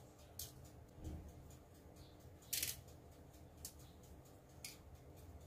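Sesame seeds sprinkled by hand over bread dough on foil-lined baking trays: a few short, soft hissing patters, spaced about a second apart, as the seeds land on the dough and the foil.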